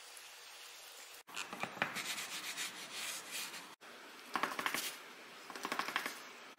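Plastic bench scraper pressed through a log of rolled cinnamon-roll dough and scraping on the stone countertop, in three spells of quick repeated scrapes.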